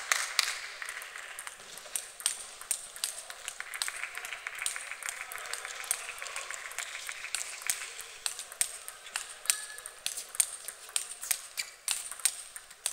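Table tennis balls clicking off bats and tables: many sharp, irregular clicks close together, with rally hits near the end.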